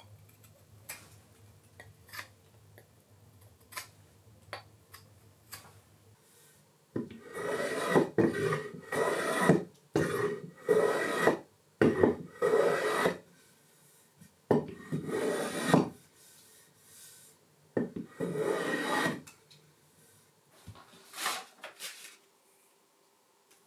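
Hand plane shaving a wooden block in about seven rasping strokes, each about a second long, starting about seven seconds in. Before that there are only faint ticks.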